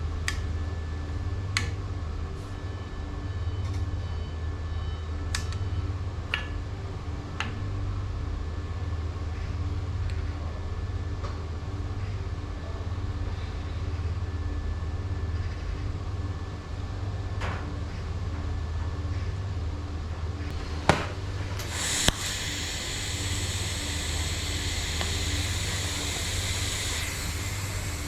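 A steady low machinery hum with scattered light metal clinks. About three-quarters of the way in come two sharp knocks, then a hiss that lasts about five seconds.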